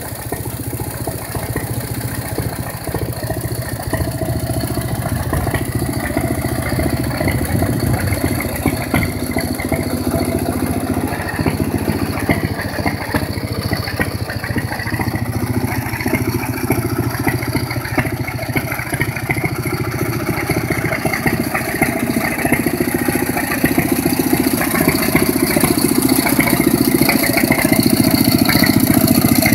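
1937 Centaur Model 2G tractor's engine idling steadily, getting a little louder over the last several seconds.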